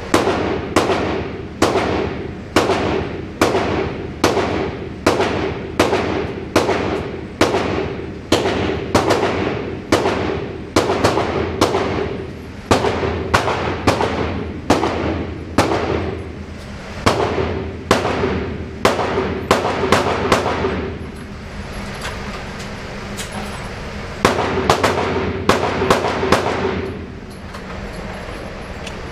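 Handgun shots fired in a steady string of a little more than one a second, each sharp crack echoing off the walls of an indoor range. The firing pauses for a few seconds about three-quarters through, resumes briefly, then stops near the end.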